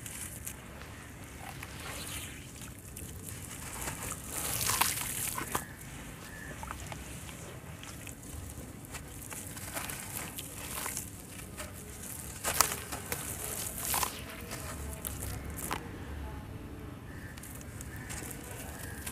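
Hands crumbling wet sand-cement chunks over a tub of water: gritty crunching, with crumbs dropping and splashing into the water and a few sharper cracks along the way.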